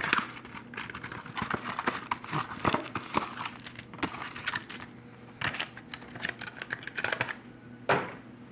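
Plastic and foil packaging crinkling and tearing in irregular handling noises as a Yu-Gi-Oh booster box and its packs are opened.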